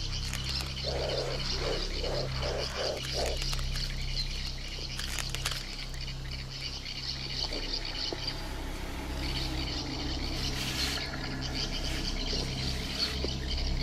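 A frog croaking about six times in quick succession a second or so in, the croaks coming closer together. Under it runs a steady high chirping chorus of riverbank wildlife, over a low steady hum.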